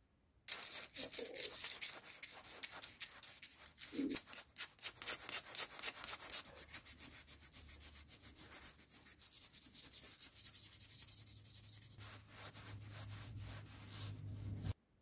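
Small metal part being hand-sanded with a folded piece of abrasive paper: quick back-and-forth scratchy strokes, about five a second. They start about half a second in and stop abruptly just before the end.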